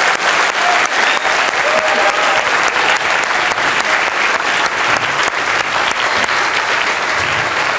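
A large lecture-theatre audience applauding steadily.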